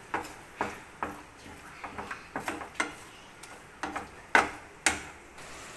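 A flat spatula knocking and scraping against a frying pan as fried cauliflower Manchurian is stirred into the sauces: irregular taps, with two louder knocks near the end.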